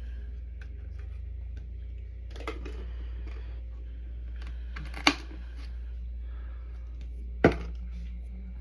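Small handling clicks and taps over a steady low hum, with two sharp, loud clicks about five and seven and a half seconds in.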